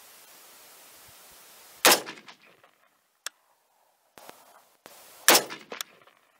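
Two shots from a 6mm ARC rifle, about three and a half seconds apart, each a sharp crack that trails off in a short echo.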